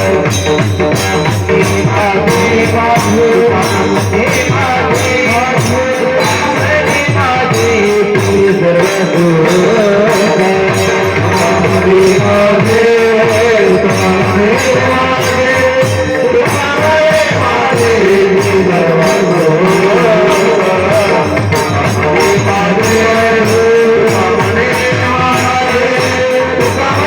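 Kirtan bhajan music: jingling hand percussion and drum keep a fast, even beat under a sustained, sliding melody line.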